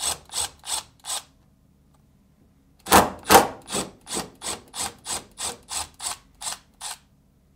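Milwaukee cordless drill/driver with a T25 Torx bit backing out the screws of a refrigerator's center door hinge: a run of evenly spaced sharp clicks, about three a second. The clicking stops about a second in and starts again at about three seconds for another four seconds.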